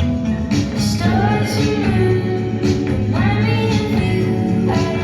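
A folk song with guitar and singing, played back over a hi-fi amplifier and loudspeakers.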